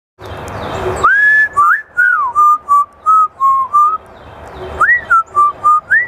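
African grey parrot whistling a tune: a phrase of short clear notes that opens with a quick rising note and then steps through several level ones, then starts the same phrase again near the end.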